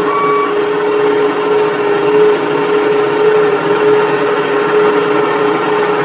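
Asphalt paver and dump truck engines running steadily, with a constant whine over the drone. A reversing alarm sounds a last beep in the first half-second, then stops.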